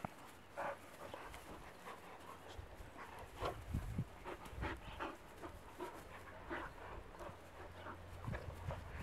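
Bernese Mountain Dog puppies play-fighting, panting, with many short, irregular bursts of noise as they wrestle.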